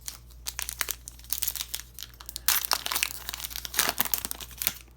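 Plastic foil wrapper of a hockey card pack crinkling and crackling as it is torn open, busiest in the second half.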